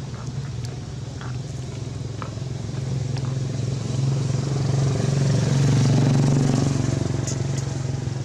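A steady engine hum, swelling to its loudest about six seconds in and then easing off, as a motor vehicle passes, with faint scattered clicks over it.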